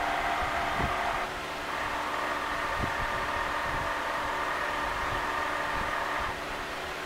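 Excalibur Phantom Force self-moving chess board's motorised magnet carriage under the board whining steadily as it drags a black pawn across the squares. The motor pauses briefly about a second in and again near the end, with a few low knocks.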